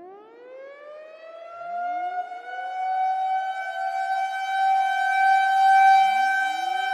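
Warning siren winding up from a low pitch and settling into a steady high tone, growing louder over several seconds. Fresh wind-ups overlap it about a second and a half in and again near the end.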